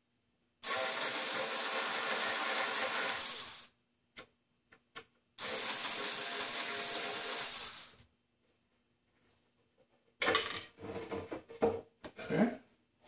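Small power screwdriver running twice, about three seconds each time, backing screws out of a grand piano's wooden music rack. Near the end comes a clatter of knocks and rattles as the loosened pieces are handled.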